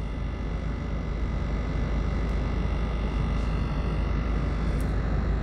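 Steady engine and tyre noise of a car driving slowly along a rough road.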